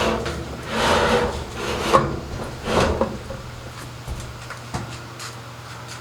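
Rubbing and scraping of washing-machine parts being handled and fitted, with a sharp knock about two seconds in; it dies down after about three seconds, leaving a steady low hum.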